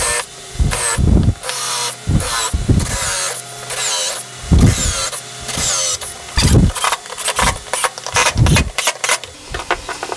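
Cordless drill driving screws into a wooden chair seat in about a dozen short bursts, the motor pitch rising as it spins up each time.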